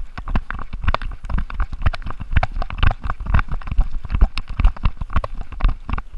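Chocolate Labrador retriever running through the woods with a camera strapped on: a rapid, irregular run of thuds and knocks from its bounding paws and body jolting the mount, over dry leaf litter.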